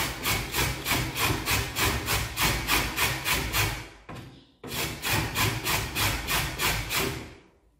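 Soft avocado seed being grated on a stainless steel box grater: quick, even rasping strokes, about four to five a second, with a short break about four seconds in, stopping near the end.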